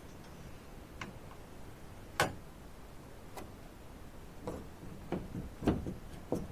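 Scattered sharp clicks and knocks of an enclosed ceiling fan's housing being lined up on its ceiling mounting bracket and fastened. The loudest knock comes about two seconds in, and several more follow near the end.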